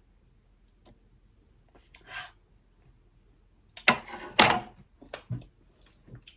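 Small objects being handled on a table: a brief rustle about two seconds in, then a burst of clattering about four seconds in and a few sharp knocks after it.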